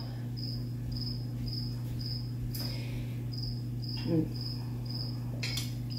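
A short high-pitched chirp repeating evenly about twice a second, over a steady low electrical hum, with one brief low sound about four seconds in.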